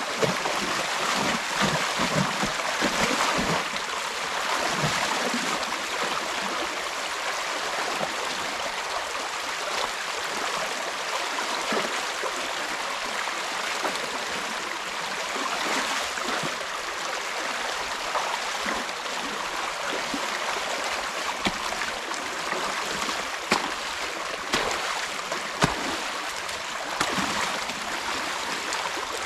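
Creek water rushing steadily through a torn-out beaver dam, with a few short knocks in the second half.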